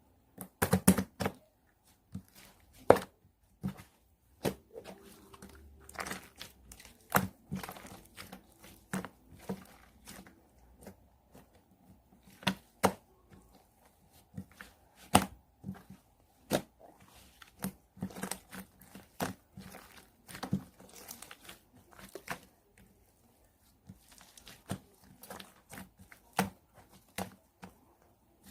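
Hands squishing, stretching and pressing a mixed slime of white clay and green slime, giving irregular sticky pops, crackles and snaps with short quiet gaps between them.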